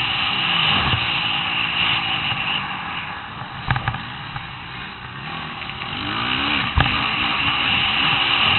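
Motocross bike engine revving up and down as it rides the dirt track, with sharp knocks about four and seven seconds in.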